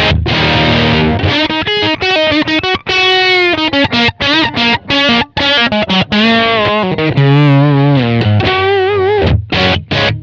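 Electric guitar played through an EarthQuaker Devices Bit Commander octave synth pedal, the octave up blended with its dirty bass tone for a nasty, raunchy distortion. The guitar plays a lead line of single held notes with string bends and vibrato.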